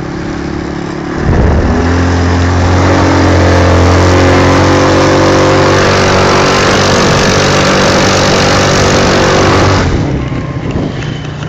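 Quad bike engine opened up about a second in and held at high, steady revs, then throttled back near the end.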